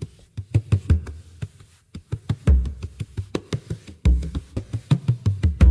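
Background music: a percussion-led beat with deep bass hits about every second and a half and quicker short strikes between.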